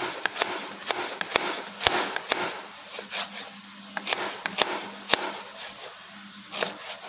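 A kitchen knife shredding cabbage on a plastic chopping board: the blade knocks sharply on the board at an uneven pace, about two to three strokes a second, with the crunch of the leaves being sliced between knocks.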